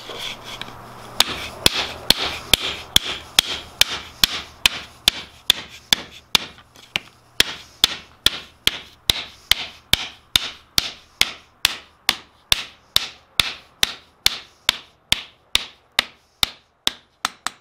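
Blacksmith's hand hammer striking a poplar board laid on a steel anvil, a steady run of sharp blows at about two and a half a second, compressing the edge of the wood into a bevel.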